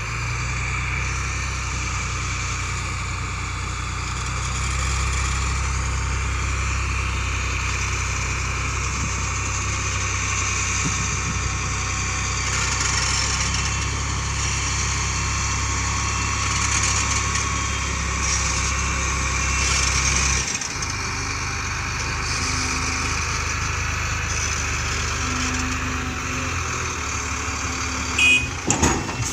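An engine running steadily with a low hum; the lowest part of the hum drops away about twenty seconds in, and a few knocks come near the end.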